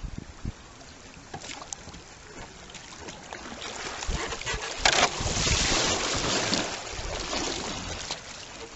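Kayak paddle strokes and river water splashing and rushing around a kayak's hull as it cuts close past a rock into an eddy. There is a knock at the very start, and the rush of water swells up about halfway through for two or three seconds, then dies down.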